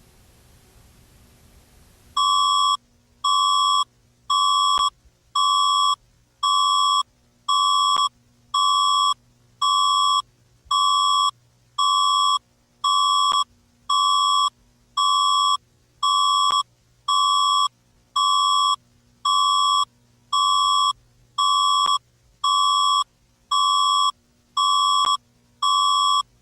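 Emergency broadcast alert tone: a harsh electronic beep near 1 kHz, repeating about once a second. It starts about two seconds in, after faint hiss, and signals the start of an emergency broadcast.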